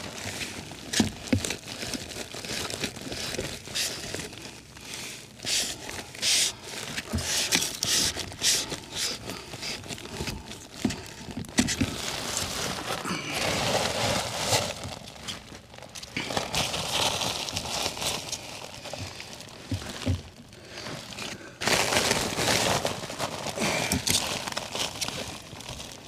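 Irregular rustling, scraping and crinkling with scattered knocks: someone working in a cramped spray-foam-insulated attic, handling conduit. The rustling comes in stretches of a few seconds with quieter gaps between.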